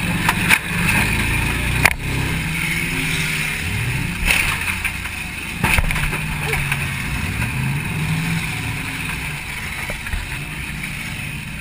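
1994 Mercury Grand Marquis's 4.6-litre V8 revving up and down under hard driving, heard from inside the cabin. Several sharp bangs of collisions cut through it, the loudest about two seconds in.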